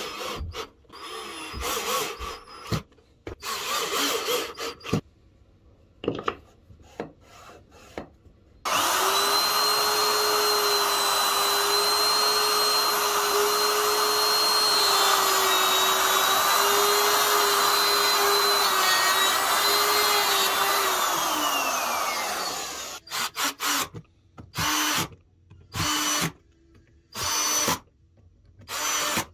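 A cordless drill drilling into plywood in short stop-start bursts. Then a Makita router runs steadily for about twelve seconds, cutting plywood, and falls in pitch as it spins down. Short drill bursts follow near the end.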